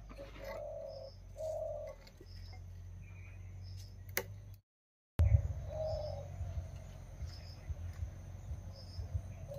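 Doves cooing: a low call of about half a second, repeated every second or so, with a small bird's short high chirps recurring throughout. The sound breaks off to silence for about half a second halfway through.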